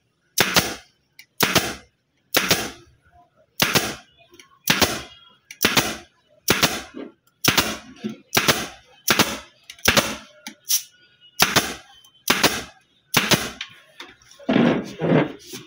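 Pneumatic upholstery staple gun firing about once a second, each shot a sharp snap followed by a short trailing hiss, as staples are driven through the fabric cover into a dining chair's seat frame.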